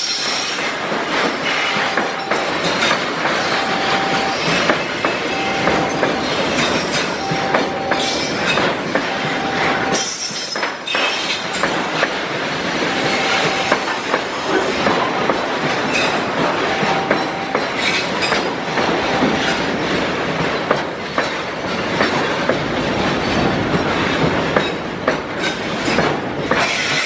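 Container freight train passing at close range: the steady rumble and rattle of loaded flat wagons, with frequent clacks of wheels over the rail joints.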